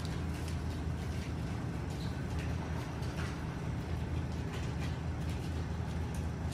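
Steady low machine hum at an even level, with a few faint clicks scattered through it.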